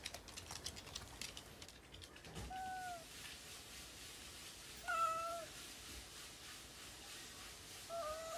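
Kitten meowing three times, short calls a few seconds apart, each dipping slightly in pitch; the middle one is the loudest.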